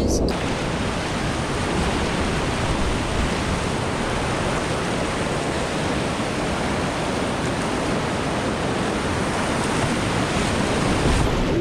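Whitewater rapids rushing around a kayak, a steady, even rush of churning water heard close up.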